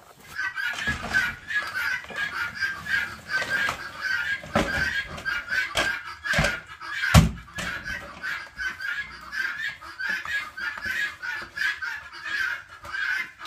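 Chickens clucking steadily, with a few sharp knocks in the middle, the loudest about seven seconds in.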